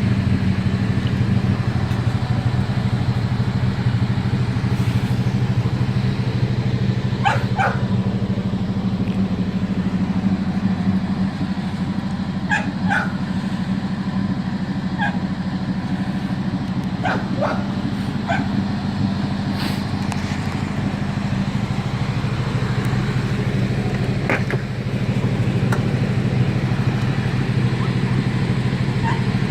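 Restored car's 440 V8 engine idling steadily, with a dog barking now and then over it.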